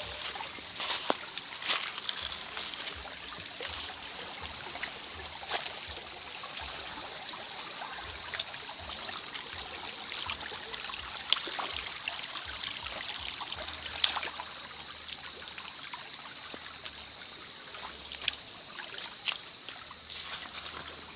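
Shallow forest creek babbling and trickling over stones, with occasional short splashes and a steady high-pitched buzz above the water.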